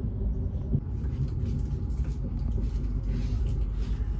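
Moving train heard from inside a passenger carriage: a steady low rumble of wheels running on the rails.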